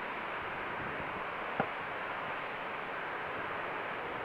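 Airbus A380's four jet engines at takeoff power, heard from behind as it begins its takeoff roll: a steady, even rushing noise. One short click about a second and a half in.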